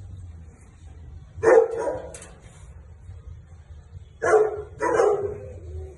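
A dog barking three times: one bark about a second and a half in, then two more close together near the end.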